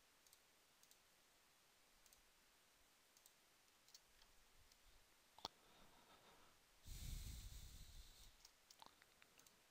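Near silence, with a few faint computer mouse clicks as objects are selected, and a brief soft rush of noise about seven seconds in.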